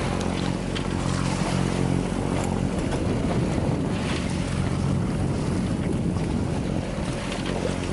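A sailboat's inboard diesel engine running steadily while motor-sailing, a low even hum, with water rushing past the hull and wind buffeting the microphone.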